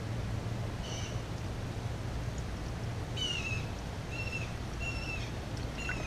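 A bird calling about five times, short clear high notes a second or so apart, over a steady low hum.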